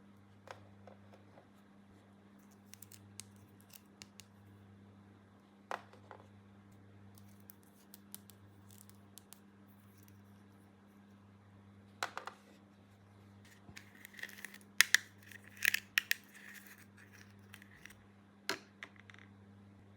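Small clicks and taps from hands handling a plastic toy playset and its packaging. The clicks are scattered and sparse, with a busier, louder run of them about three-quarters of the way through, over a faint steady low hum.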